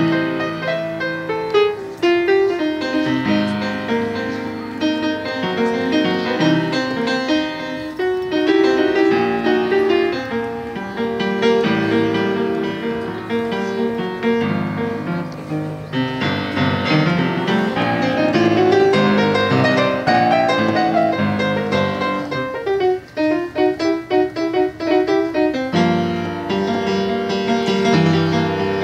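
Solo piano music played on a keyboard, a continuous flow of chords and melody. About three-quarters of the way through it breaks into a few seconds of short, detached repeated chords before fuller playing returns.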